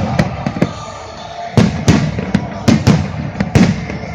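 Fireworks exploding: a rapid series of sharp bangs, a few at the start, then a lull of about a second before a dense run of about ten more bangs.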